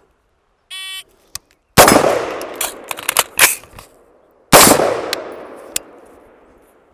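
A shot timer beeps, and about a second later an AR-15 pistol in 5.56 fires an unsuppressed shot that echoes off the surroundings. Sharp clicks follow, then a second loud shot about four and a half seconds in, part of a timed reload drill.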